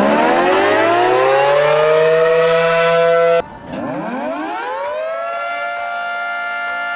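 Warning siren winding up in pitch to a steady wail, cut off abruptly about three and a half seconds in. A second, quieter siren then winds up the same way and holds its tone.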